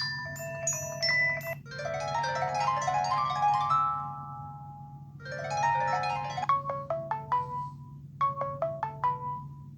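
Samsung Galaxy Young 2 built-in ringtone playing: a synthesized mallet-like melody of quick rising note cascades, then short staccato notes. A steady low hum sits underneath.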